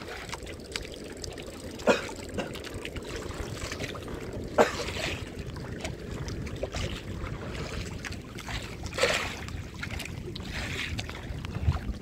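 Water sloshing against a small boat's hull, with three sharp knocks on the boat about 2, 4.5 and 9 seconds in.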